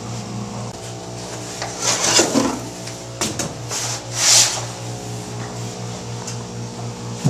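A large planter pot scraping and rubbing against a cardboard box as it is lifted out, with two louder scrapes, one about two seconds in and one just past the middle. A low hum that pulses several times a second runs underneath.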